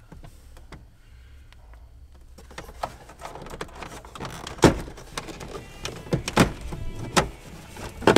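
Plastic clicks and knocks of a VW T3 dashboard's top instrument cowling being worked loose by hand, with several sharp knocks in the second half.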